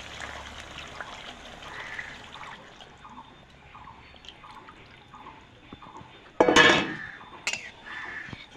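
Thick spinach curry simmering in a pan, bubbling with soft pops about twice a second, then a loud short clatter of a utensil against the pan about six and a half seconds in, followed by a couple of sharp knocks.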